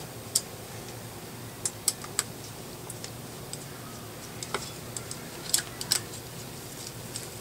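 Irregular light metallic clicks and taps of a small hex key and socket on the 2.5 mm Allen screws and metal tube of a JTS Airacuda air rifle's action as the screws are turned in. There are about a dozen clicks, a few sharper ones near the start and around five to six seconds in.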